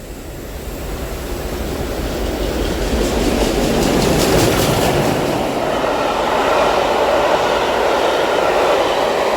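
Train drawing into the station and running past, getting steadily louder over the first few seconds and then holding, with wheels clattering on the rails. This is most likely the steam-hauled railtour led by Merchant Navy class Pacific 35018 British India Line.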